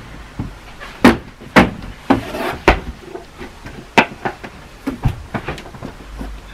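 Irregular sharp knocks and clacks, about eight in a few seconds, from rummaging through a clothes wardrobe: hangers and belongings knocking against the rail, shelves and doors.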